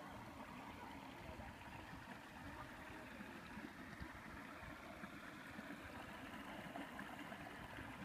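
Faint, steady rush of running water from a spring-fed stone trough and a small pebbly brook, with a low, uneven rumble underneath.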